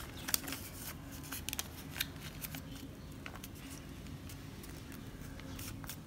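White paper being folded and creased by hand for an origami bird: soft scattered crinkles and ticks, two sharper ones about a third of a second and two seconds in.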